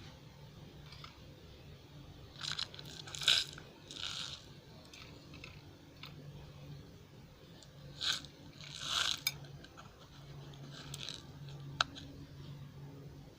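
Small pieces of salvaged scrap solder are handled and tipped onto a scale pan while being weighed. There are several short bursts of scraping and rattling and one sharp tick near the end.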